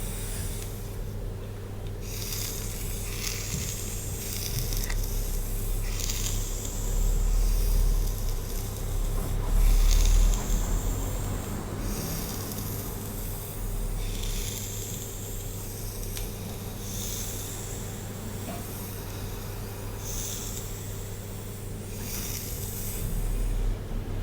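Hair being brushed in slow strokes, a soft swish every couple of seconds, over a steady low hum.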